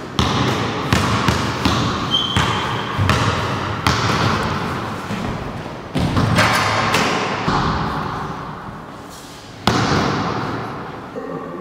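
Basketball bouncing on a sports-hall floor, dribbled at about one bounce a second, each bounce ringing on in the large hall. There is a brief high squeak about two seconds in, a louder bang about six seconds in as the ball goes up at the hoop, and one more hard bounce near the end.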